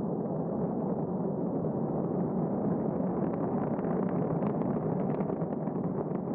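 Proton-M rocket's six first-stage engines running during ascent: a steady, heavy rushing noise, with crackling coming in from about halfway.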